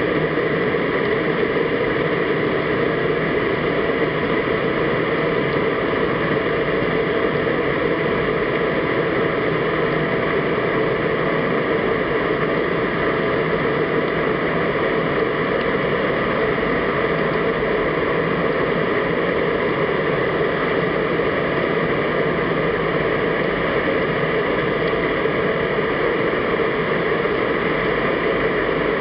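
Steady underwater noise picked up through a camera's waterproof housing: an even hiss and rumble that does not change.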